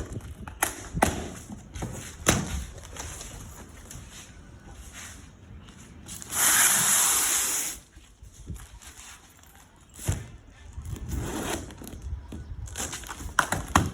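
Scattered knocks, clicks and handling noises, with a harsh hiss lasting about a second and a half midway.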